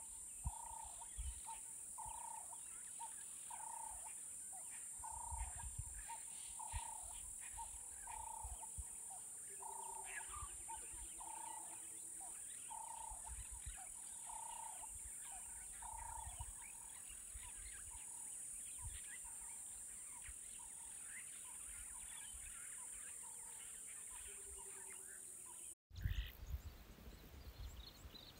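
Bush ambience: an animal calling one short note, repeated about once a second, keeps on for about sixteen seconds and then fades, over a steady high-pitched hiss. Near the end the sound changes abruptly to louder low wind rumble with bird chirps.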